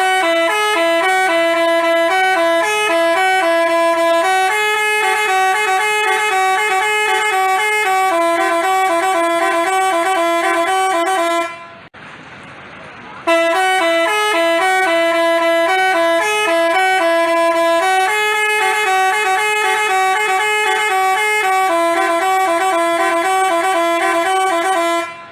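Basuri telolet multi-tone bus horn playing a tune of stepped notes. The tune runs for about eleven seconds, breaks off briefly, and then plays again.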